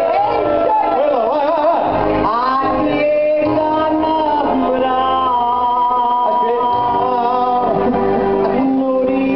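A woman singing live into a microphone through a PA speaker, with instrumental backing; her voice swoops and wavers for the first few seconds, then holds longer notes.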